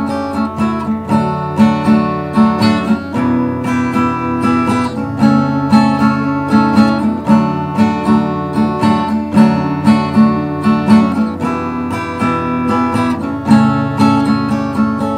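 Acoustic guitar strumming chords in a steady rhythm, an instrumental break in a folk-country song.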